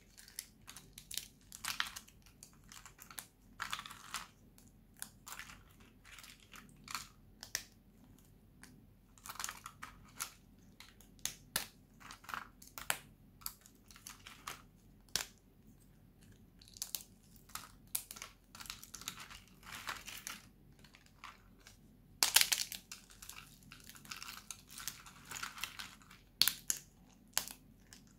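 Hands snapping and crumbling brittle soap pieces: an irregular run of dry crunches and crackles, with a louder burst of crushing a little over three quarters of the way through.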